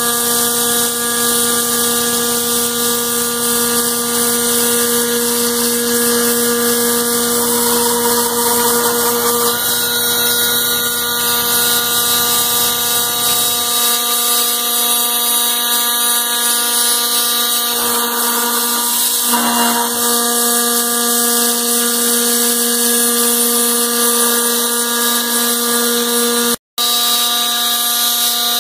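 CNC machine's spindle and end mill cutting aluminium: a steady whine of several tones over a dense hiss of cutting noise. A low hum underneath drops away about halfway through, and the sound cuts out for an instant near the end.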